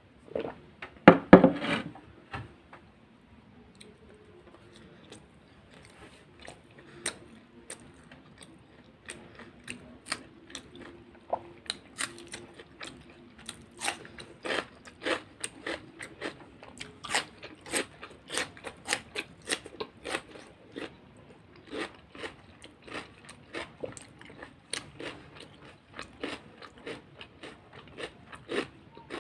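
Close-miked mukbang eating of samosas and rolls with raw green chilli, cucumber and onion: a loud crunchy bite about a second in, then steady crunchy chewing at about two to three chews a second.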